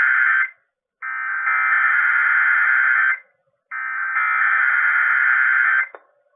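Emergency Alert System SAME header data bursts from a required weekly test, heard through an AM radio broadcast: the end of one burst, then two more lasting about two seconds each, a second of silence between them. A small click comes just after the last burst.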